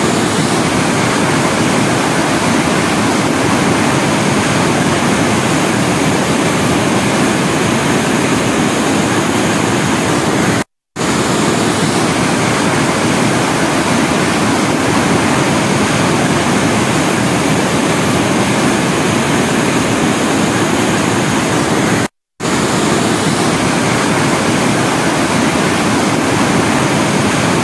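Muddy water rushing in a torrent through a breach in a tank's earthen embankment, a loud steady roar of falling water. It cuts out twice for a split second.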